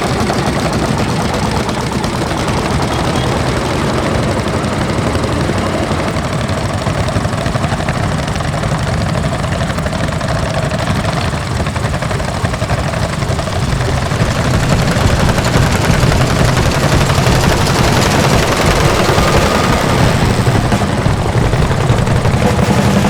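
Lanz Bulldog tractor's single-cylinder two-stroke hot-bulb engine running, a fast steady train of exhaust beats that gets louder about halfway through.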